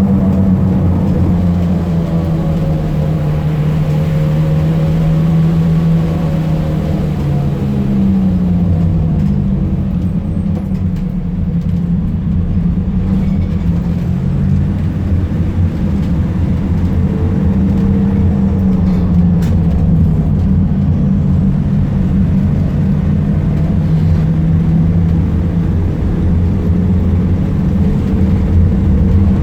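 Fiat Ducato minibus's turbodiesel engine running while driving, its note rising and falling with acceleration and gear changes, over road rumble. This is the bus whose strange turbo noise ended in a blown turbo.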